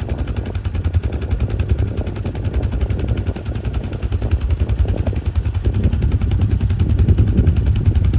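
Farmall 400-series tractor engine running steadily under load with a rapid, even exhaust beat while it and an Allis-Chalmers All-Crop 72 pull-type combine harvest soybeans; it grows a little louder near the end.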